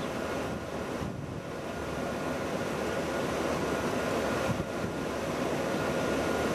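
Wind on the microphone: a steady rushing noise that grows slightly louder, with a faint thin steady tone under it.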